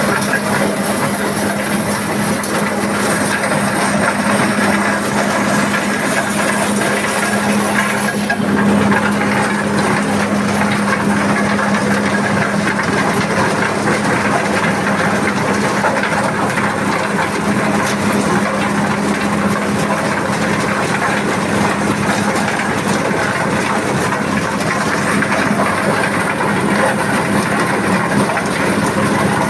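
Diesel-driven corn sheller running steadily: the 8 HP diesel engine's even drone under the continuous rattle and hiss of the shelling drum.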